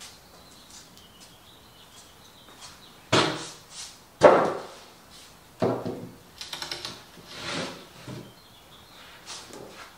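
Plywood panels handled on wooden sawhorses: a series of wooden bumps, knocks and scrapes starting about three seconds in, the loudest at about four seconds.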